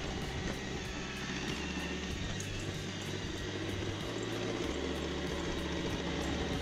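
iRobot Roomba 675 robot vacuum running on carpet, a steady motor whir. Background music with a low bass line underneath.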